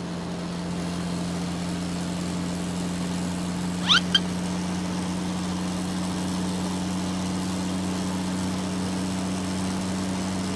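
Cartoon truck engine sound effect: a steady low drone, with two quick rising squeaks about four seconds in.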